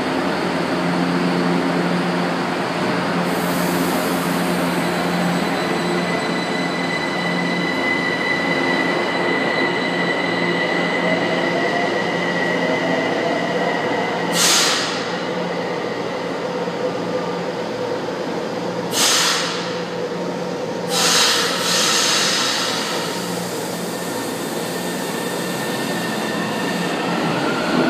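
São Paulo Metro Line 1 subway trains in an underground station: a steady rumble of train noise with a rising motor whine as a train gets under way, and three short hisses partway through. Near the end a train moves past close by, its whine rising again.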